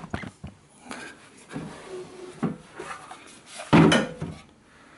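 Clattering and knocking as a plastic engine fuel tank is handled and turned over, a few scattered knocks with the loudest about four seconds in.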